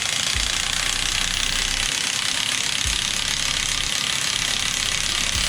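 A pneumatic tool running continuously with a steady high hiss and mechanical whir, stopping abruptly at the end.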